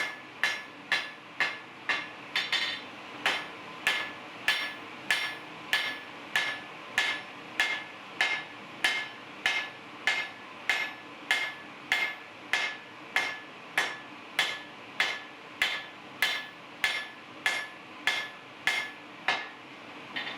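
Blacksmith's hammer striking hot steel on an anvil in a steady rhythm, about one and a half blows a second, each with a short metallic ring, as a jackhammer bit is forged out into a blade.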